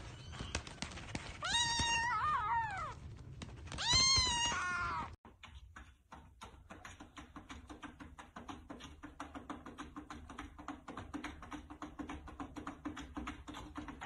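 A kitten meows twice, high calls that fall in pitch. Then comes a quick, even clicking, several clicks a second, as a cat paws and scratches at the plastic flap of a cat door.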